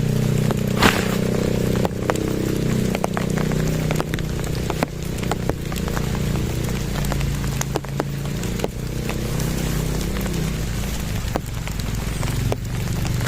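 Steady rain falling on a surface, with many individual drops ticking sharply. A low, steady drone runs underneath.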